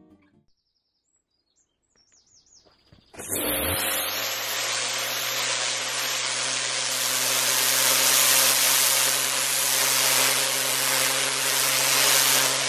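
Pressure washer jet blasting water onto an asphalt driveway: a loud, steady spray hiss with the constant hum of the washer's pump underneath, starting suddenly about three seconds in after near silence.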